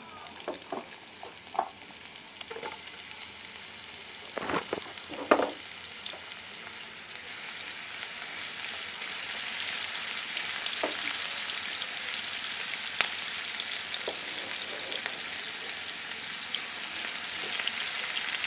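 Chopped onions frying in oil in a non-stick pan, sizzling with scattered crackles as a spatula stirs them. The sizzle is faint at first and grows louder from about seven seconds in, with a couple of knocks about four and five seconds in.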